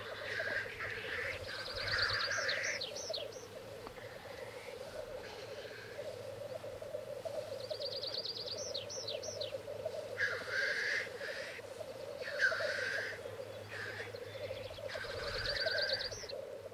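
Male black grouse lekking: a continuous bubbling cooing, the rookooing song, broken every few seconds by hissing 'tchu-whee' sneezes. A short, high, rapid ticking phrase that hooks upward at its end comes three times.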